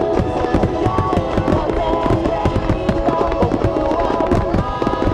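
Star mine barrage: aerial firework shells bursting in rapid succession, many booms and crackles a second, over music with sustained tones.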